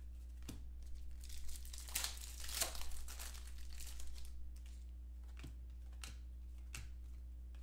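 Foil wrapper of a trading-card pack crinkling and tearing as it is opened, with a few sharp clicks of card stock being handled before and after. A steady low hum runs underneath.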